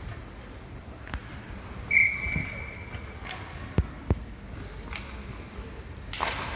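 Ice hockey referee's whistle blown once, a single steady high note lasting about a second, then two sharp knocks in quick succession about two seconds later, in the echo of a rink.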